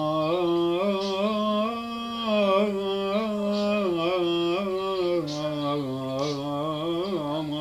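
An elderly man singing unaccompanied, a slow Cypriot folk melody (a ballos) with long held notes and ornamented turns between them.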